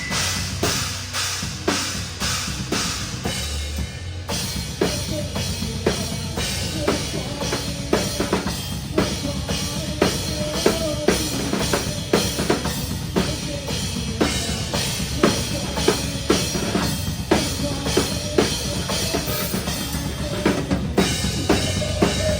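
Live metalcore band playing, heard from right at the drum kit: kick drum, snare and cymbals are loudest in a fast, steady rhythm over the rest of the band, with a brief break about four seconds in.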